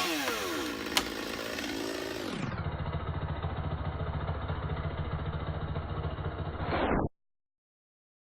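Chainsaw engine dropping from full throttle back to idle, then idling steadily with a low pulsing note until the sound cuts off abruptly.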